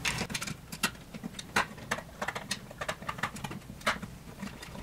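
Screwdriver and stiff wire handled inside a steel electrical box: scattered, irregular light clicks and taps of metal on metal.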